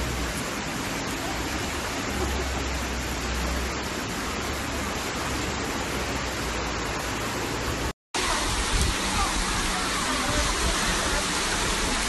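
Steady hiss of heavy rain and running floodwater on a flooded street, picked up by a phone microphone. The sound cuts out for a moment about eight seconds in, then comes back a little louder.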